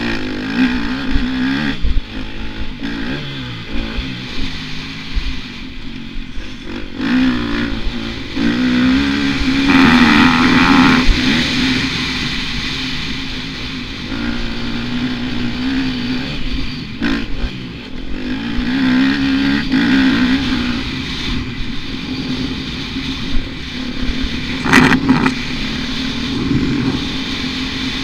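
Dirt bike engine heard from on board, revving up and falling back again and again as it is ridden over a motocross track, loudest in a long pull about ten seconds in. A brief sharp knock a few seconds before the end.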